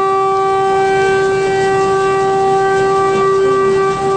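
Train horn sounding one long, steady blast at a single pitch with strong overtones, over a low rumble.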